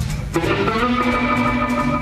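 Live blues band playing: an electric guitar takes a solo over bass and drums, settling into a long held note about a second in.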